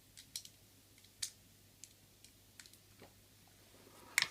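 Plastic soft-air BBs being pushed one by one into the P230 spring pistol's magazine: small, irregular clicks, with a sharper click near the end.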